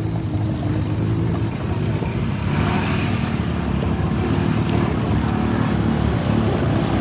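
ATV engine running under throttle, its pitch rising and falling a little. About two and a half seconds in, a rushing hiss joins it.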